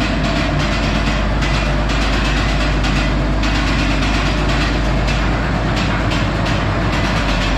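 MX245 tractor's diesel engine running steadily as the tractor drives; the engine has internal problems and is about to be pulled for a rebuild.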